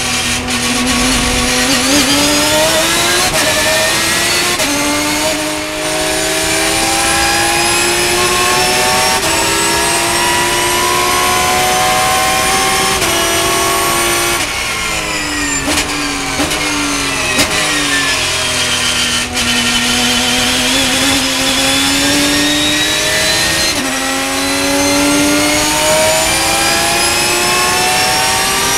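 Porsche race car engine heard from inside the cockpit, accelerating hard through the gears, its pitch climbing and dropping at each of several upshifts. About halfway it comes off the throttle for braking, with short blips on the downshifts, then pulls hard again with one more upshift near the end.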